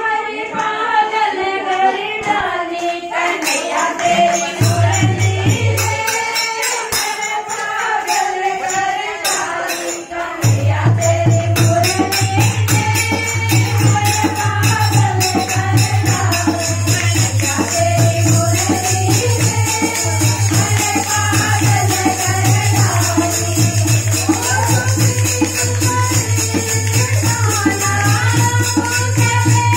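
A group of women singing a Hindi devotional Krishna bhajan together, with jingling hand percussion. A dholak beat comes in briefly about four seconds in and then plays steadily from about ten seconds on.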